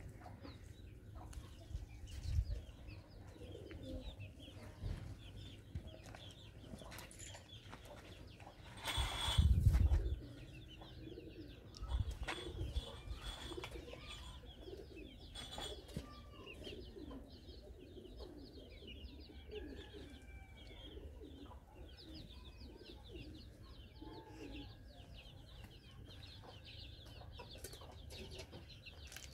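Outdoor village ambience of birds: many small birds chirping, with cooing pigeons or doves. A louder rush of noise comes briefly about nine seconds in, with a few soft knocks around it.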